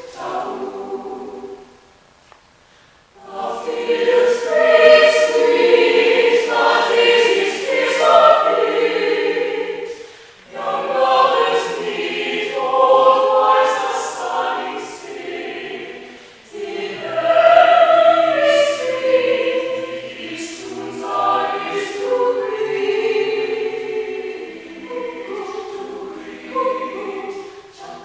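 Mixed-voice a cappella chamber choir singing in several parts, in phrases broken by short pauses.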